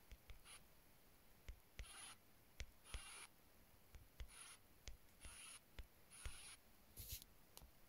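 Faint, short scratchy rubbing sounds, about one a second, with light clicks scattered between them.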